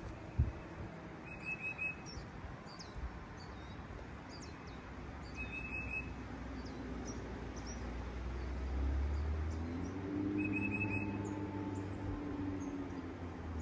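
Wild songbirds calling: a short trilled call repeats three times, about every four to five seconds, among scattered thin high chirps. A low rumble builds through the last third.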